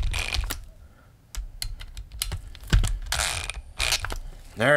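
Cordless drill-driver running in short bursts, driving the screws of a motor end cap down a little at a time, with sharp clicks and taps in between.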